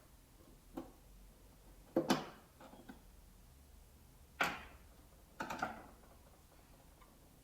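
A handful of separate sharp clicks and knocks from hands and tools handling the generator's plastic housing and parts. The loudest come about two seconds and four and a half seconds in, with a quick cluster just after.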